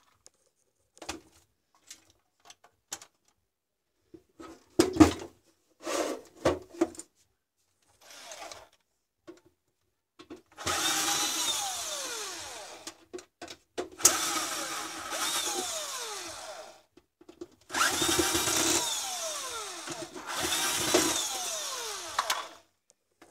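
Electric drill-driver running in four bursts of two to three seconds each in the second half, its whine sliding down in pitch during each run, as it drives out the screws of a UPS's metal case. Before that, scattered light clicks and knocks of screws and tools being handled.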